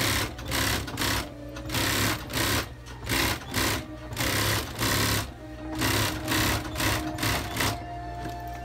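Industrial sewing machine stitching thick shearling, run in many short bursts, each under a second, that start and stop in quick succession.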